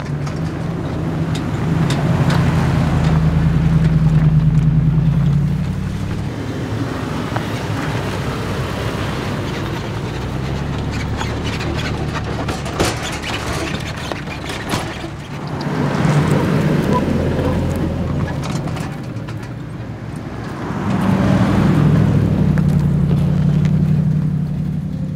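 Toyota 4Runner driving a dirt trail, its burbling exhaust swelling louder twice as it accelerates, about three seconds in and again near the end. Rough tyre noise and scattered sharp clicks run under the engine.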